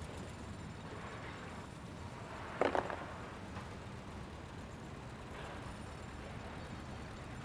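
Steady low rumble of outdoor street ambience. About two and a half seconds in comes a short burst of a few quick clicks.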